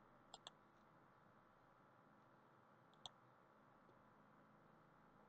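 Faint computer mouse clicks: a quick pair about half a second in, then a single click about three seconds in.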